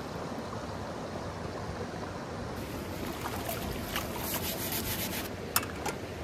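Shallow stream flowing over stones, with splashing and rustling in the middle as a bunch of fresh greens is swished through the water, then two sharp clicks near the end.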